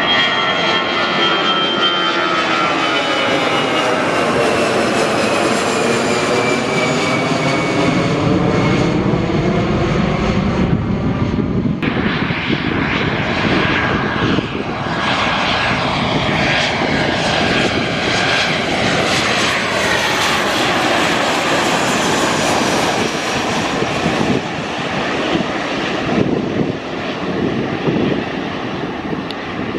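Jet airliner engines passing close by: a high whine falling in pitch over the first several seconds, under a loud, steady rush that carries on to the end.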